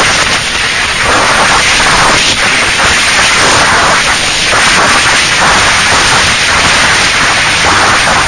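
Loud, distorted rush of wind buffeting the microphone of a camera riding on a moving ATV, fluttering unevenly and burying any engine sound.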